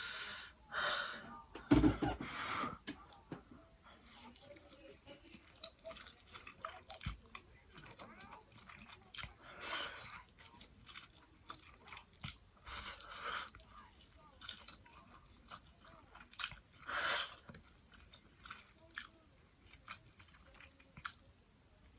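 A person chewing food close to the microphone, with scattered small wet clicks and several louder bites.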